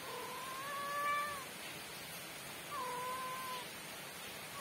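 Orange-and-white domestic cat meowing twice: a long, drawn-out meow lasting over a second, then a shorter one that starts high and drops quickly in pitch.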